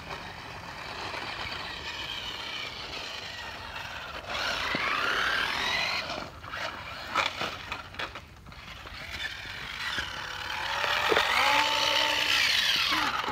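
Battery-powered toy RC car's electric motor whining, its pitch rising and falling as it speeds up and slows down, twice, with a few sharp clicks between.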